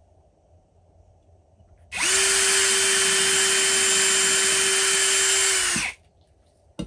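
Cordless drill running at one steady speed for about four seconds, boring a small pilot hole into a wooden rifle stock for a sling stud. It starts about two seconds in and stops just before six seconds, with a single click shortly after.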